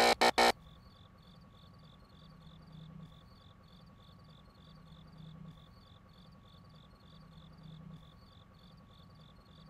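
The last notes of a loud music sting break off half a second in. Then faint crickets chirp in a quick, even rhythm, about three chirps a second, over a steady thin tone and a low hum that swells every couple of seconds.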